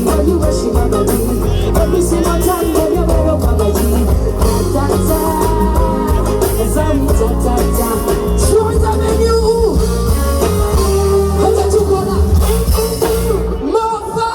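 Loud music with a singing voice over a heavy bass beat; the bass drops out shortly before the end.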